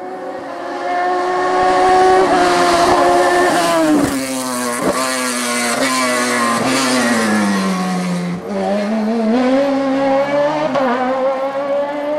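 Race car engine at high revs, holding a steady note, then falling in pitch through several quick gear changes from about four seconds in and climbing again as it accelerates, a little past eight seconds.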